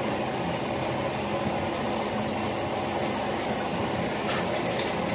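A machine running steadily with a constant hum, with a few sharp clicks near the end.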